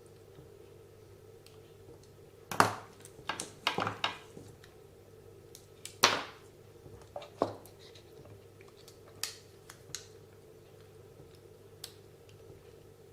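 Scattered sharp clicks and knocks of small tools and hard RC car parts being handled on a workbench, loudest about two and a half seconds in and again about six seconds in, over a low steady hum.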